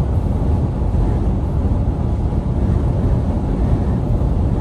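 Semi truck travelling at highway speed: a steady low rumble of engine and road noise with some wind noise.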